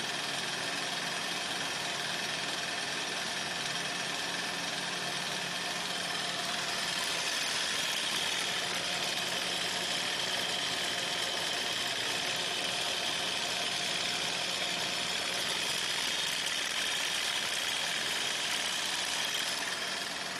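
Paper stick making machine running steadily as its roller rolls wood-pulp paper into sticks: a continuous mechanical running noise with a high whine, a little louder for a stretch in the middle.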